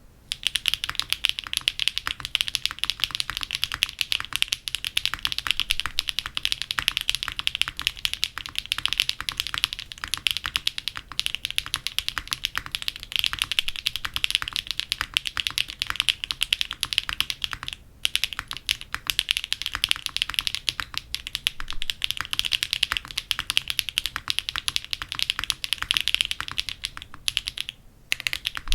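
Mechanical keyboard being typed on quickly and continuously, a dense stream of key clicks with two brief pauses, one about two-thirds of the way through and one near the end.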